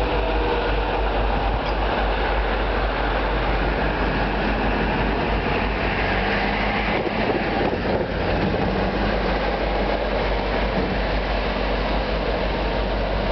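MBTA commuter train passing over a road grade crossing: the steady, dense rumble and rush of its cars rolling on the rails.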